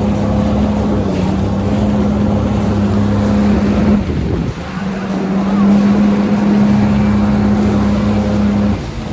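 Jet ski engine running at a steady throttle, with water rushing under the hull. It eases off briefly about four seconds in and drops again near the end.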